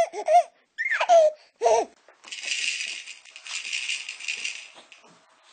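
A few short bursts of baby laughter, then a toy rattle shaken steadily for almost three seconds before it fades.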